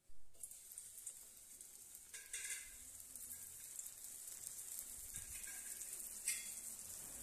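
Bread squares frying in hot oil in a pan, a steady high sizzle that swells twice as more pieces go into the oil.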